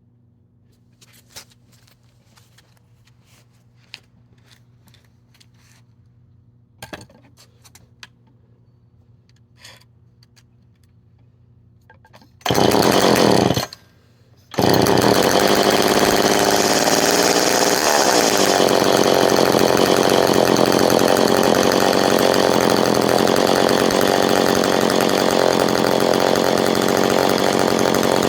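A few faint clicks of handling, then the two-stroke engine of a McCulloch 10-10 Automatic chainsaw fires for about a second and dies. It starts again a second later and keeps running steadily and loudly.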